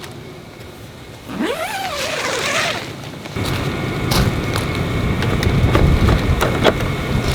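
Strong wind buffeting the microphone, a dense low rumble with scattered knocks and clicks that sets in about three seconds in. Before it, a short rising squeak.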